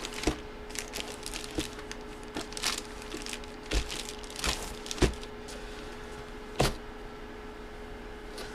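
Scattered light knocks and clicks of a boxed item and its packaging being handled on a table, a dozen or so irregular taps with the loudest about two-thirds of the way through, over a faint steady hum.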